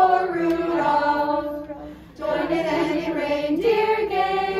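Middle school choir of mixed voices singing a holiday song a cappella in long held notes, with a short break for breath about two seconds in.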